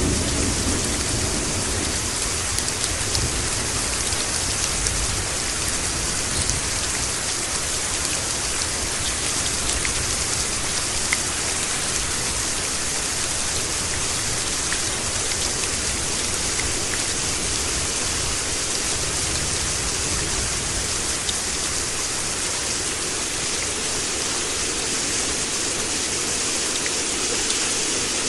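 Steady, heavy rain: an even hiss with scattered drops pattering on surfaces. A low rumble of thunder dies away in the first second.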